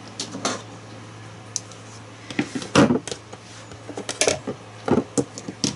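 Handling noise of hands picking up a crocheted swatch, yarn and a metal crochet hook on a tabletop: scattered light knocks and clicks, the loudest a little under three seconds in, with a steady low hum underneath.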